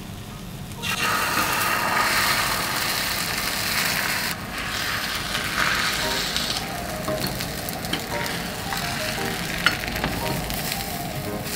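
Beaten egg poured into a hot oiled frying pan for a rolled omelette, sizzling loudly as it hits the pan about a second in. The sizzle drops to a lower steady level after a few seconds, with a few light clicks of chopsticks against the pan.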